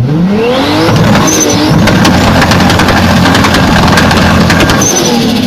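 Toyota Supra engine revving: the pitch climbs steeply over the first second, then holds at high revs with a rapid crackle and eases off near the end.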